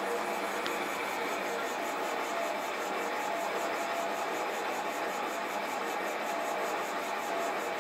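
Sieg SC4 lathe running with a between-centres boring bar cutting inside a cast iron cylinder sleeve: a steady, even whirring.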